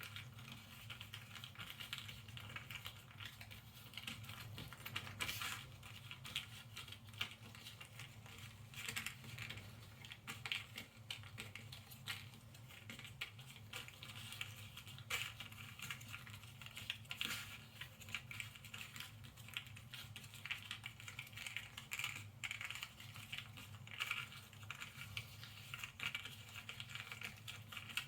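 Cardboard jigsaw puzzle pieces being handled and moved about on a tabletop: a continual patter of small clicks and taps with light rustling.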